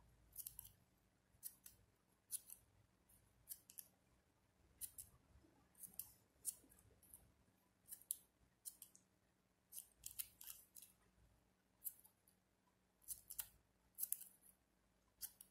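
Small scissors snipping through ribbon: about twenty short, crisp snips, unevenly spaced and sometimes two or three close together, as slanted notches are cut into the edges of ribbon leaves.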